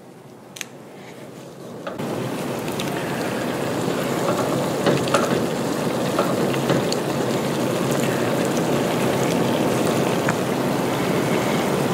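Broth with orzo and kale boiling in a cast iron skillet: a steady bubbling rush that starts abruptly about two seconds in, with scattered small pops.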